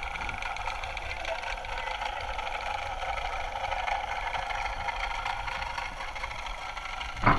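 Steady underwater hum with several steady tones, heard with the camera below the surface. About seven seconds in, a sudden loud rush as the camera breaks the surface.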